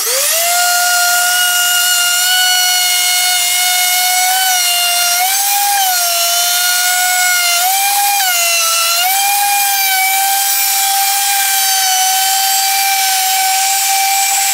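Handheld electric router with a flush-trim bit, spinning up at the start and then running with a steady, loud high whine. Its pitch dips briefly a few times midway as the bit takes its cut along the wooden box edge.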